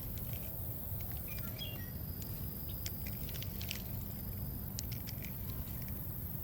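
Wind buffeting the microphone as a steady low rumble, with scattered light clicks and a few faint high chirps.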